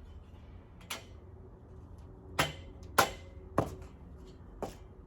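Rubber mallet knocking the braces of boltless rivet shelving into its metal uprights: five sharp knocks, the middle three loudest and about half a second apart.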